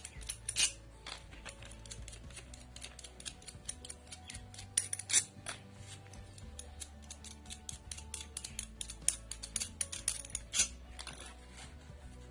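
Screwdriver working the screws out of a table fan's casing: many small metallic clicks and scrapes, a few of them louder, over background music with a low bass line.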